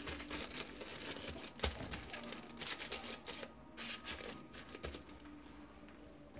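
Aluminium foil crinkling and crackling under hands pressing it into shape. The crinkling stops about five seconds in.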